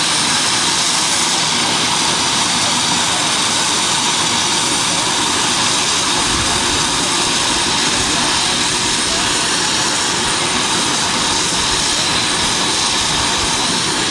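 Blackburn Buccaneer's Rolls-Royce Spey turbofan running steadily on the ground: a loud, even roar with a high, steady whine on top.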